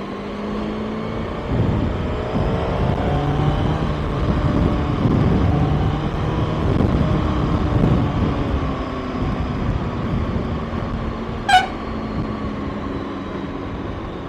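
Kawasaki ZX-6R's inline-four engine running under way, its pitch shifting as the revs change, over steady wind and road noise. A short horn toot sounds once about eleven and a half seconds in.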